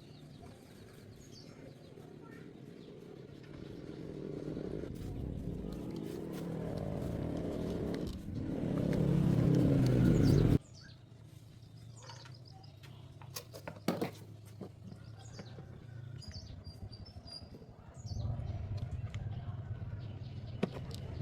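A motor running, growing louder and then stopping abruptly about halfway through; a quieter hum with a few knocks follows, and the louder running starts again near the end. Birds chirp faintly.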